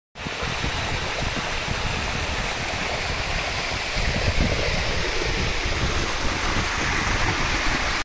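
Water of a small waterfall and stream rushing and splashing over rocks: a steady rush that grows a little louder about four seconds in. Low wind rumble on the microphone runs underneath.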